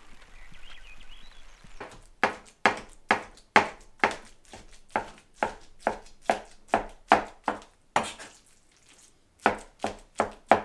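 Chef's knife chopping raw salmon scraps fine on a plastic cutting board: steady chops about three a second, starting about two seconds in, with a pause of about a second and a half near the end before the chopping goes on.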